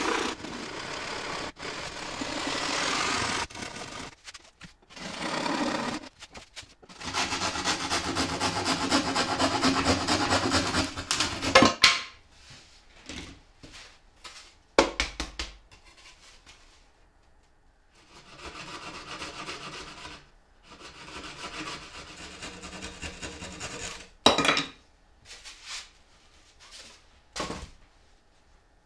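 Hand saw cutting plywood with quick back-and-forth strokes, stopping and restarting, for about the first twelve seconds. After that come handling knocks and a thump, a lighter rubbing, and a sharp knock about 24 seconds in.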